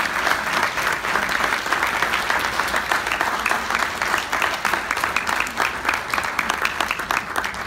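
Audience applauding: many people clapping together, the clapping thinning into fewer, separate claps near the end.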